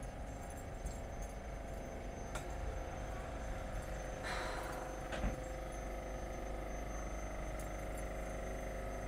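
Vintage electric tram running with a steady hum and scattered light clinks. A short hiss comes about four seconds in and a knock just after five.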